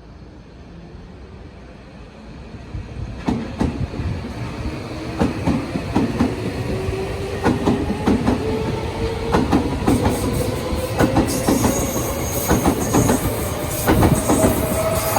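Tobu Railway electric train running past, wheels clattering over rail joints, building up about three seconds in. Its motor whine rises slowly and steadily in pitch as the train picks up speed.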